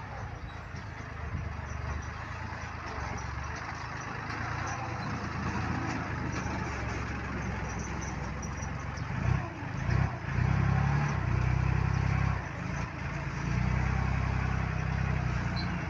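Diesel engine of a 115-horsepower farm tractor with a front loader, running steadily as it drives forward. About nine seconds in it revs louder, with a couple of brief dips, as the loader bucket is raised.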